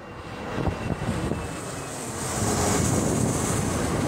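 Embraer ERJ-145-family regional jet passing low on approach with its gear down, its rear-mounted turbofan engines giving a low rumble with a high hiss that rises and grows louder about two seconds in. Wind noise on the microphone.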